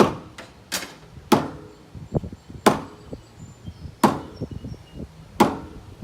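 Sledgehammer blows against a wall: six sharp strikes, each with a short ring, the first three quick and the rest about a second and a half apart. The blows knock the wall in toward plumb.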